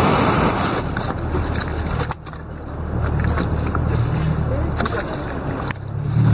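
Small open motorboat running at speed through choppy sea: a steady engine drone under a loud rush of wind on the microphone and water along the hull. The rush drops off briefly about two seconds in and again near the end while the engine keeps going.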